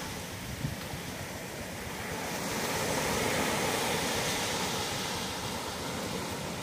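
Sea surf breaking and washing up a sandy beach. The rush of water swells about halfway in and slowly eases off.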